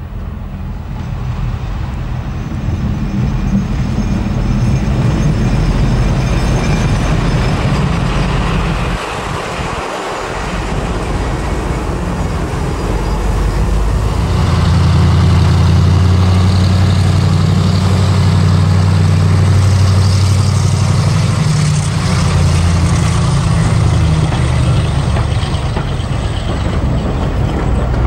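Class 35 Hymek diesel-hydraulic locomotive with its Maybach engine running as it approaches. About nine seconds in, after a break, a diesel-hauled train of coaches passes close by, the engine's steady low note rising louder and holding until near the end.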